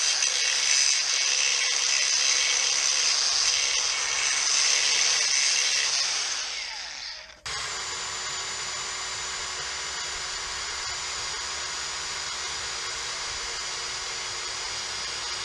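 Angle grinder grinding a piece of steel angle iron, then dying away. After a sudden cut, an electric drill runs at a steady speed, boring a hole through the angle iron with a constant whine.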